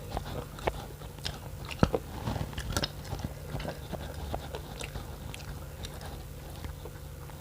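A person eating close to the microphone: irregular wet chewing clicks, smacks and crunches, over a steady low hum.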